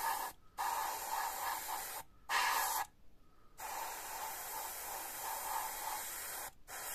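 Airbrush spraying thinned metallic paint in five spurts of hiss, separated by short breaks. The longest spurt lasts about three seconds in the middle.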